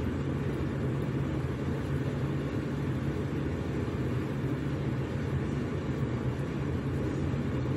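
Steady low machine hum with an even rushing noise above it, like a fan or appliance motor running.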